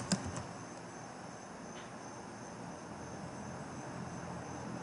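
Faint, steady background hiss with a thin, high-pitched hum running through it. A few soft computer-keyboard clicks sound right at the start.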